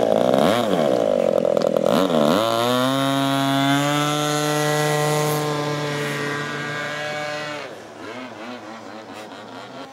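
Radio-controlled scale biplane's engine running. Its pitch dips and recovers a few times, then it holds a steady, slowly rising note at takeoff power as the plane climbs away. The sound drops off and wavers more faintly in the last two seconds as the plane gets farther off.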